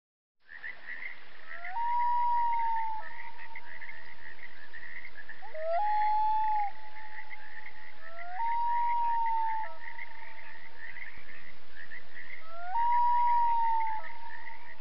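A dense chorus of frogs calling fades in. Four long wailing calls sound over it, each sliding up into a held note of about a second.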